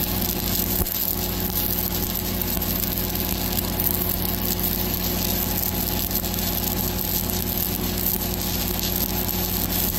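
Stick-welding arc crackling steadily as a 1/8-inch 7018 electrode burns on steel, running smoothly, over the steady hum of an engine-drive welding machine.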